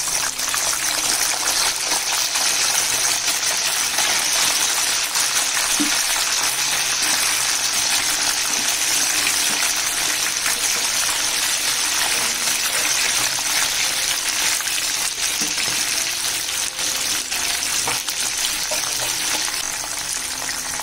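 Marinated chicken pieces deep-frying in hot oil in a pan: a steady, dense sizzle with fine crackling, easing slightly near the end. This is the second frying, which crisps the coating.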